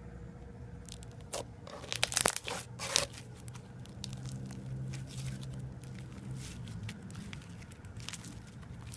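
Slime being squished and worked by hand: a burst of sharp sticky crackles and pops between about one and three seconds in, then fainter scattered crackling.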